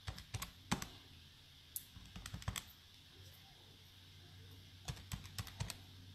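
Quiet clusters of light, quick clicks and taps, like typing, coming in bursts of a few at a time with short pauses between.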